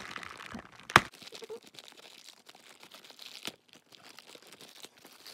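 Thin plastic packaging bag crinkling and rustling as hands handle and open it, with one sharp crackle about a second in and faint irregular crackles after.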